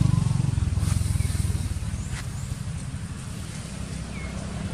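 A vehicle engine running with a low, rapidly pulsing rumble that fades away over the first two or three seconds, with a few faint, short high chirps.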